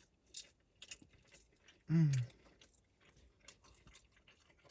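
Close-miked chewing of a breakfast sausage sandwich: soft, wet mouth clicks and smacks. About two seconds in there is a brief hummed "mm".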